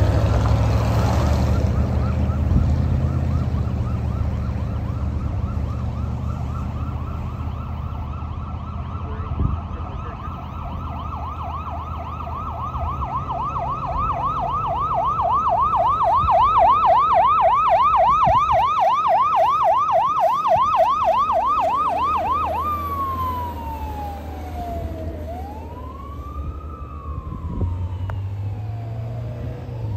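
Fire engine siren in yelp, a fast repeating up-and-down whoop that grows louder as the truck approaches, switching about two-thirds of the way through to a slower wail that falls and rises. Road traffic and engine hum run underneath.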